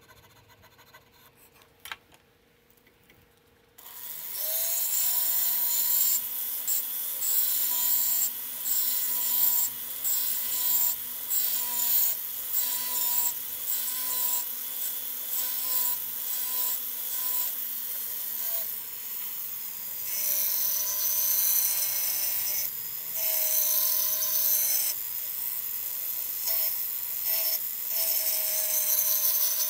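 Hand checkering tool cutting lines into a wooden 1911 grip panel: repeated rasping strokes, about one to two a second, starting about four seconds in after near quiet.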